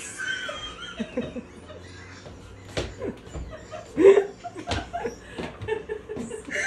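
Quiet, stifled laughter and chuckling in short bits, with a few light knocks.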